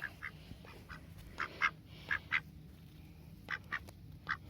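Rouen drakes giving short, raspy quacks, several of them in quick pairs.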